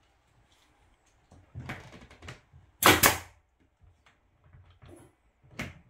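Pneumatic nail gun firing nails into pine tongue-and-groove ceiling boards: one loud, sharp shot about three seconds in and another near the end, with faint handling noises before them.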